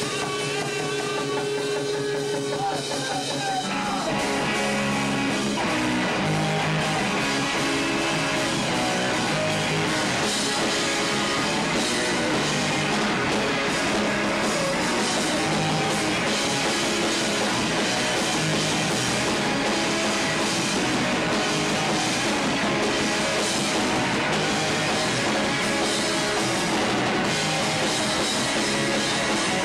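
Live rock band of two electric guitars and a drum kit playing loudly. The first few seconds are thinner, with held guitar notes, then the drums and full band come in about four seconds in and carry on.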